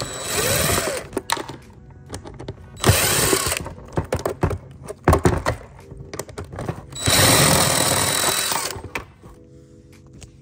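Cordless drill-driver backing out the screws that hold a rolling suitcase's wheel housing, in three short runs of the motor, the last about two seconds long, with sharp knocks and clatters in between.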